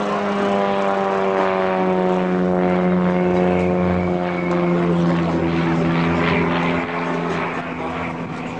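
Super Decathlon's four-cylinder Lycoming engine and propeller droning as the aerobatic plane passes overhead, the pitch falling steadily as it goes by. It is loudest in the middle and drops off about seven seconds in.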